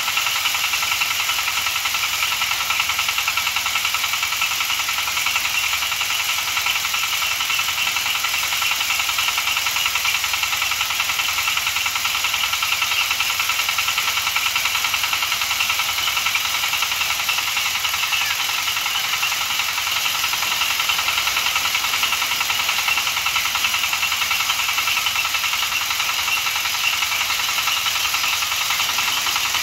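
Rice threshing machine running steadily under load, driven by its small single-cylinder diesel engine, with a constant rushing hiss from the threshing drum over the engine.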